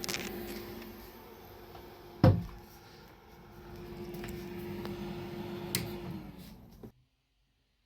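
Bambu Lab P1S 3D printer running with a steady fan hum, with a few handling clicks and one sharp knock about two seconds in. Near the end the hum dips slightly in pitch, then all sound cuts off abruptly.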